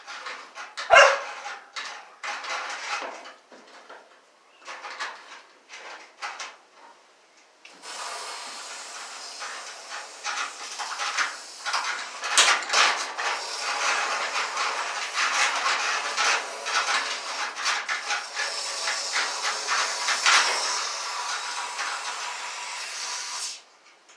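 Aerosol internal frame coating sprayed through a long extension wand: a steady hiss that starts about eight seconds in and stops suddenly near the end. Before it, scattered clicks and knocks as the wand is fed into the frame.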